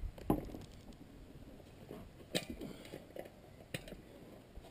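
A few scattered light clicks and knocks as a spoked dirt-bike wheel with a knobby tire is lifted and turned by hand.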